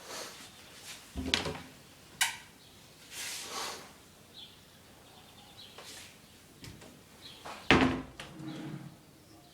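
Kitchen cabinet doors and drawers being opened and shut: a heavier thud about a second in and another near the end, with a sharp click and a short sliding rush between them.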